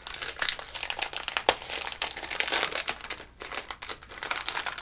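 Foil blind bag crinkling and crackling as it is handled and opened, with a short lull about two-thirds of the way through.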